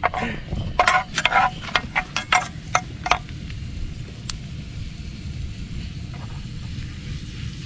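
Garlic frying in oil in a pan on a portable gas stove, with a utensil clattering and scraping in the pan during the first three seconds, over a steady low rumble.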